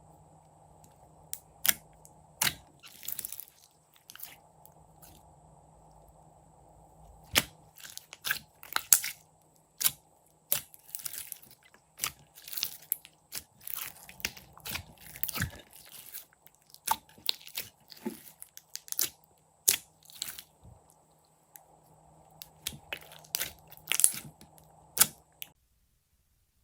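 Crunchy, crackling handling sounds, likely slime being squeezed and pressed by hand: irregular sharp clicks and crunches, sometimes in quick clusters, that stop abruptly near the end.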